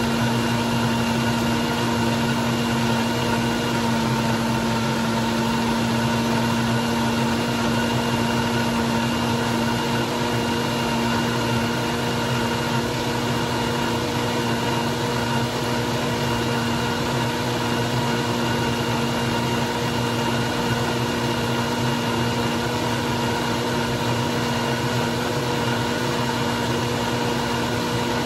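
Countertop blender running steadily at high speed, blending a thick fruit smoothie: a constant motor hum and whir that does not change in pitch or level.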